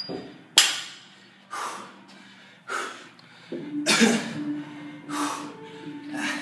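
Hard, forceful breathing of a man mid-workout: sharp exhales about once a second, the loudest about half a second in. Background music with held low notes comes in about three and a half seconds in.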